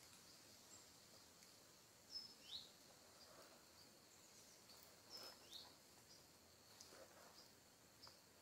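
Faint woodland ambience: a small bird gives two short high chirps about two seconds in and two more about five seconds in, over a faint steady high hiss.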